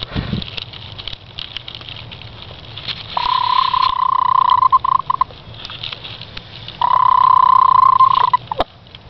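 A Speckled Sussex hen purring while nesting: two long, steady, even-pitched calls, the first about three seconds in and the second about seven seconds in.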